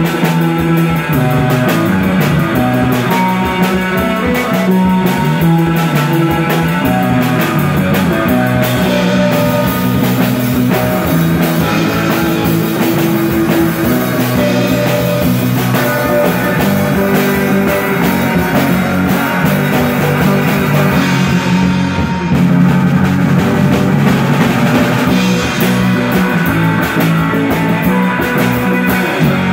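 A live instrumental rock band playing: electric guitars over a drum kit, with no vocals. There is a short break in the playing about three quarters of the way through, after which it comes back slightly louder.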